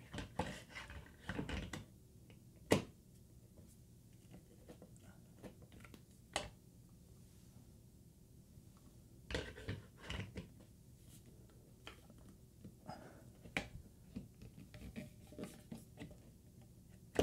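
Plastic Alta Labs AP6 Pro access point knocking and scraping against its plastic ceiling mounting bracket as it is pressed up and twisted, in scattered clicks and taps, the sharpest about three seconds in. It is not latching into the mount.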